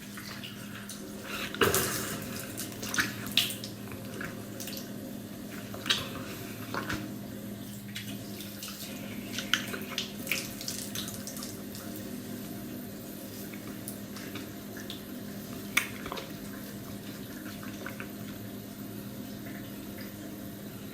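Tap water running into a bathroom sink during face washing, with short louder splashes scattered through, the strongest about two seconds in and again near sixteen seconds.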